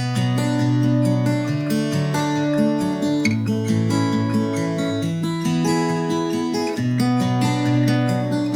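Background music: acoustic guitar strumming and picking a steady chord progression.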